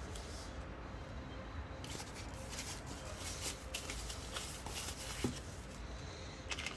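Handling noises from unboxing: rustling and scraping of packaging with light taps and clicks, and one sharper knock about five seconds in.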